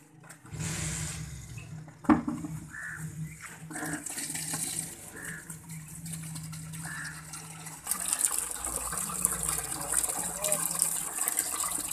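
Water from a wall tap pouring into a plastic bucket, the splashing getting clearly louder about eight seconds in. A sharp knock about two seconds in.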